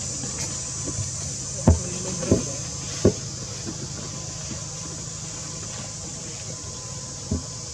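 Steady outdoor background hiss and low rumble, with four short sharp knocks: three close together in the first half and one near the end.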